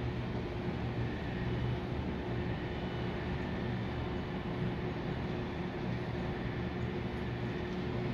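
Steady low city hum with a faint constant tone running through it.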